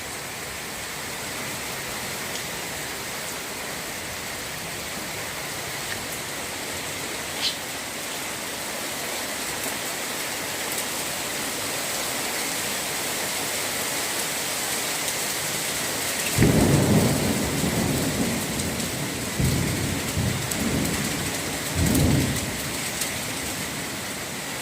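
Heavy, torrential rain falling in a steady hiss. About 16 s in, a louder low rumbling starts suddenly and comes back in waves for several seconds.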